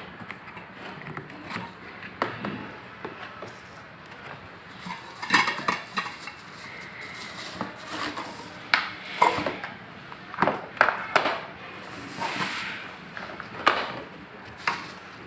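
Unboxing a large stainless steel electric kettle: packaging rustling and scraping, with scattered sharp knocks and clatter as the kettle and its parts are handled, busiest in the second half.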